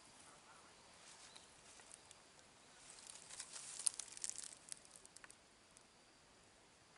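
Dry leaf litter and twigs crackling and rustling in undergrowth, a faint flurry of short crisp crackles around the middle.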